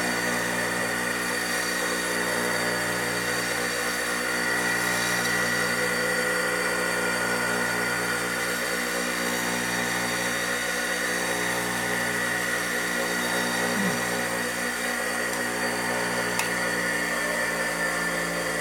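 A shop machine's electric motor running steadily: a constant hum made of several fixed tones over a hiss, with no change in speed.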